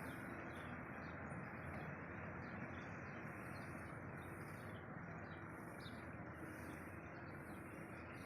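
Small birds chirping repeatedly in short high calls over a steady background hiss.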